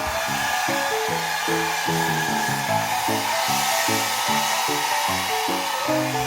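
Hair dryer blowing steadily, under light background music with a plucked, stepping melody.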